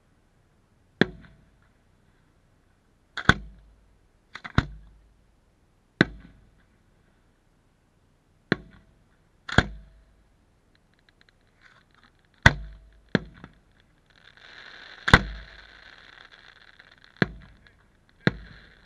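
Aerial firework shells bursting overhead: about a dozen sharp bangs at irregular intervals, some in quick pairs, each dying away over about half a second.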